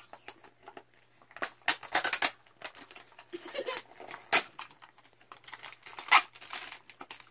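Crinkling and tearing of small toy blind-pack wrappers being torn open by hand: scattered crackles, with louder rustling bursts around two, four and six seconds in.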